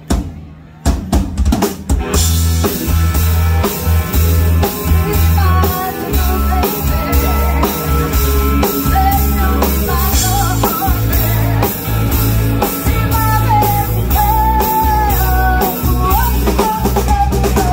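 Live rock band playing. A few drum strokes open it, then about two seconds in the full band comes in with drum kit, bass and electric guitar, and a woman singing over it.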